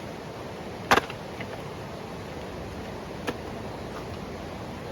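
Firewood being split by hand: one sharp, loud strike on the wood about a second in and a lighter knock a couple of seconds later.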